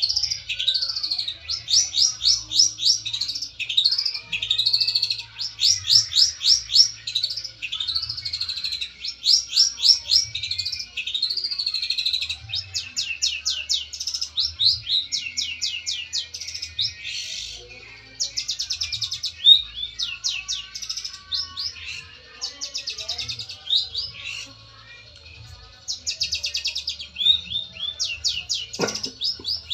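Long-tailed shrike (cendet) singing: fast runs of high chattering notes and quick up-and-down whistles in loud phrases, with short breaks and a quieter stretch a little past the middle. It is the aggressive 'fighter' song used to call out a rival and provoke other shrikes into answering.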